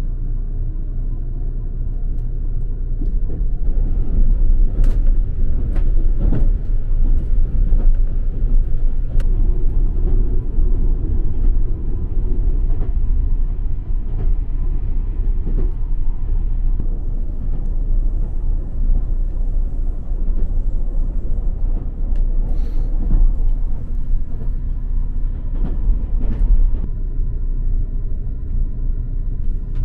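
Express train running, heard from inside a passenger compartment: a steady low rumble with scattered short clicks.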